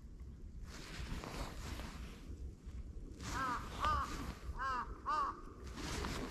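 A crow cawing four times, in two quick pairs, about halfway through, over gusts of wind noise.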